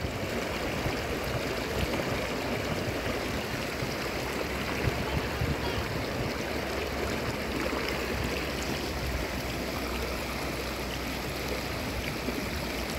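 Shallow river running over stones: a steady babble of flowing water.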